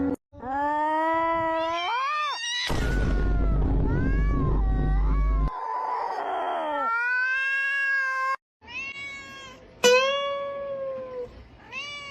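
A cat giving a series of long, drawn-out meows. The first call rises in pitch, a loud noisy stretch follows, and several shorter meows come near the end.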